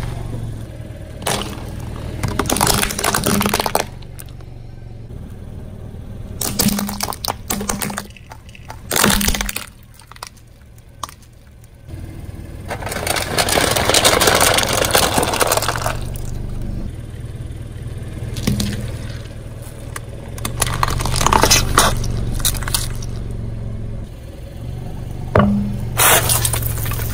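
A car tyre slowly rolling over and crushing a series of objects, with breaking and cracking sounds. First come plastic gloves packed with puffed snacks, then aluminium foil bowls crumpling and scraping flat, the loudest and longest stretch. A low steady hum runs underneath.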